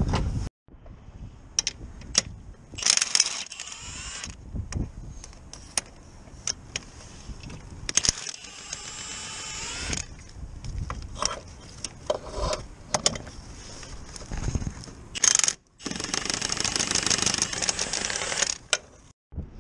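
Ratchet wrench on a long extension clicking in runs as bolts are turned, with single metallic clinks of hand tools between the runs.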